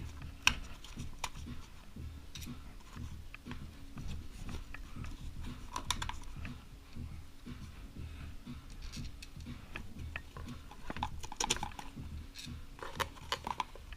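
Irregular light clicks and metallic taps of hand tools and engine case bolts being handled, with a sharper knock about half a second in, over a low steady hum.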